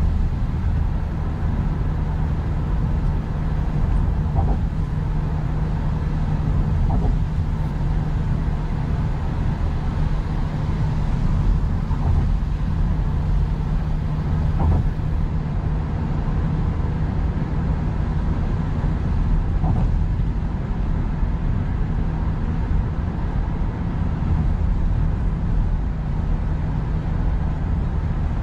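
Steady cabin noise of a Toyota car cruising at highway speed: a low engine and road drone with tyre hiss.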